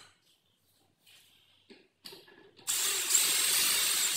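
A few light knocks, then about two-thirds of the way in a DeWalt cordless drill starts driving a screw through a metal drawer slide into the wardrobe panel, running steadily with a high motor whine.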